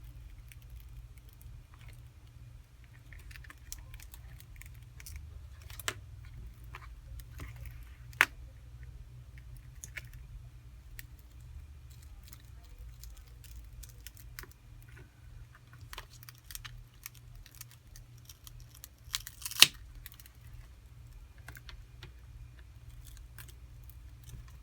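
Small clicks and taps of pry tools working against the glued back glass and frame of a Samsung Galaxy S7 as the glass is worked loose, with two sharper clicks, about eight seconds in and near twenty seconds in, over a steady low hum.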